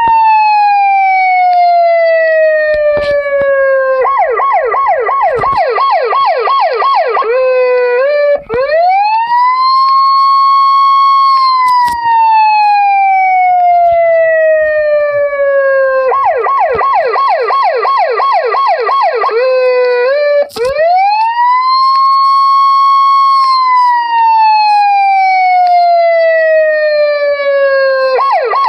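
Icelandic police siren cycling through its patterns. A rise to a held high note, a slow falling wail, then a stretch of rapid yelping sweeps, about four a second, with the whole cycle repeating about every twelve seconds.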